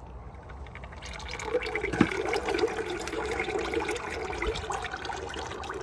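Engine oil draining in a thin stream from an outboard motor's drain plug into a plastic bucket, splashing into the oil already pooled in it; the pour grows louder about a second in and then runs steadily. A single sharp click about two seconds in.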